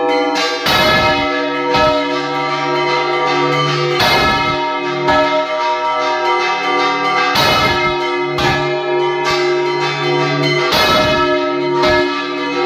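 Church bells rung by hand: a large bell swung full circle on its yoke while smaller bells are struck by ropes pulled to their clappers. The strikes come every second or so and overlap in a continuous ringing peal.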